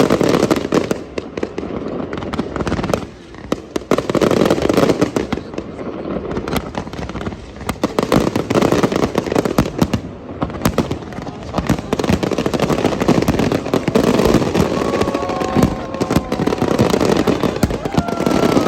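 Fireworks going off without pause, dense crackling mixed with heavier bursts, over crowd noise. Near the end a few thin, held whistling tones sound over the crackle.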